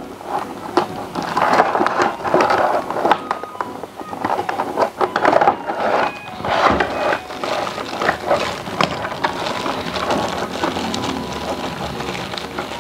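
Thin clear plastic bag crinkling and crackling as it is slit with a utility knife and pulled open by hand, a dense run of small crackles throughout.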